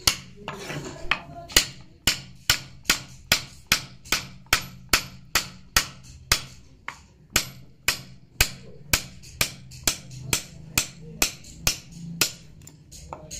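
A steel carving chisel struck again and again with a mallet as it cuts a relief pattern into a wooden panel: sharp knocks in a steady rhythm, about two to three a second.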